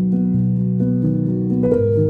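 Background instrumental music: a steady run of held notes that change about every half second, over a light ticking beat.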